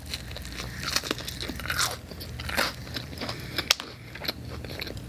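Close-up chewing of pizza topped with crunchy hot Cheetos: irregular crunches and wet mouth sounds.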